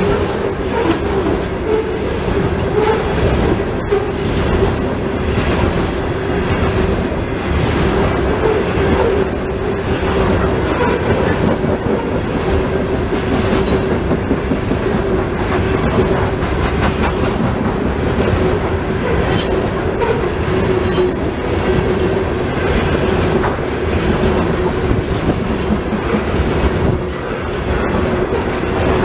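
Loaded coal hopper cars of a freight train rolling past at track speed: a continuous rumble and clatter of steel wheels on the rails, with a steady hum.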